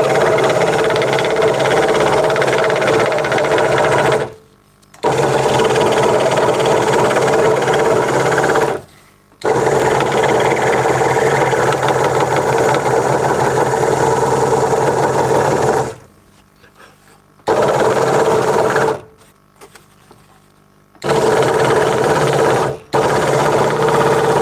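Craftsman 22-inch scroll saw running with its blade cutting through a thin wooden workpiece: a steady mechanical drone. It drops away abruptly several times for a second or two, then comes straight back.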